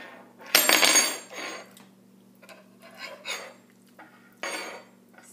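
Spoons scraping and clinking in paperboard ice cream pints as scoops are taken: a series of short scrapes and taps, the loudest about half a second in.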